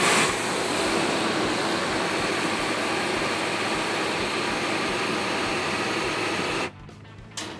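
Handheld gas torch burning with a steady hiss, its flame played against the underside of a frying pan to heat the pan. The flame cuts off suddenly nearly seven seconds in, and a brief burst follows just before the end.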